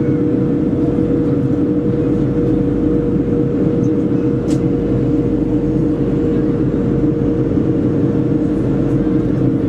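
Steady cabin noise of a Boeing 737-400 during descent: the even drone of its CFM56 engines and airflow, with one steady hum held over a low rumble.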